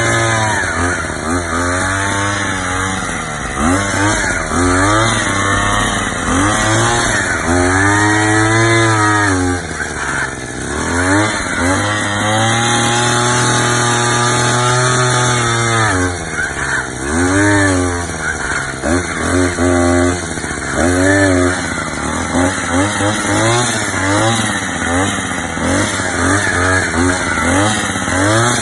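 Gasoline earth auger with an 8-inch bit boring a fence post hole, its small engine running loud with the revs rising and falling over and over as the throttle is worked and the bit bites into the soil. The swings quicken in the second half.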